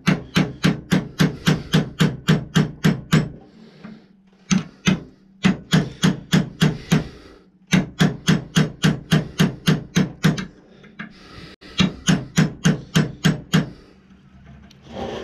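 A punch struck with light, quick hammer taps, driving a brass barrel lug sideways into its dovetail in a muzzleloader barrel. The taps come about five a second in four runs, with short pauses between them.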